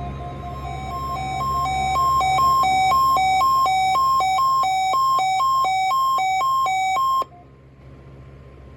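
Weather radio receiver's alert alarm sounding for the weekly test: a high and a low beep alternating about twice a second, growing louder over the first two seconds, then cutting off abruptly about seven seconds in. A low steady hum runs underneath.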